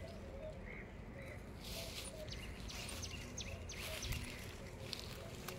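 Green fodder stalks being cut by hand: a run of short, crisp rustling swishes with a few sharp snicks, starting about a second and a half in.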